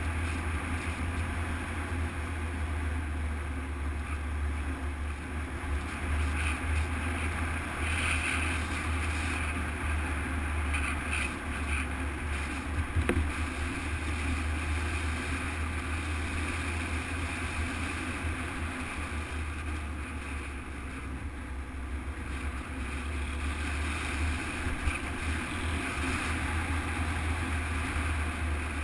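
Motorcycle engine running steadily on the move, with wind buffeting the camera microphone; a single brief knock about 13 seconds in.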